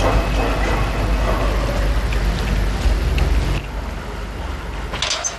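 Steady road traffic noise with a low rumble, dropping in level about three and a half seconds in.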